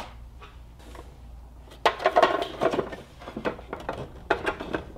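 Hard plastic storage bins clicking and clattering as they are handled and fitted together, in a run of short knocks starting about two seconds in.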